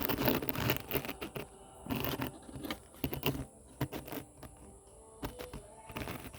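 Handling noise: irregular light clicks, taps and short rattles as the recording phone is picked up and set in place.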